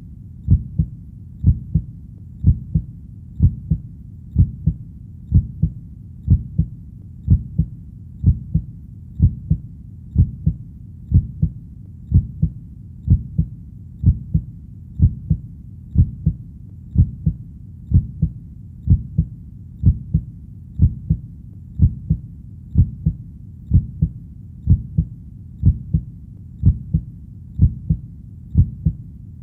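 Heartbeat: a low double thump repeating evenly at about one beat a second.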